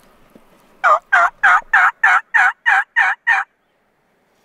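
A run of about ten loud, evenly paced turkey yelps, roughly four a second, called by a hunter to draw a gobble from nearby toms.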